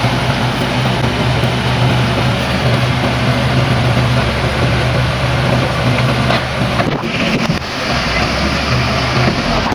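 Diesel engine of a JCB 3DX backhoe loader running steadily with a strong low hum and a broad rushing noise; its note shifts about seven to eight seconds in.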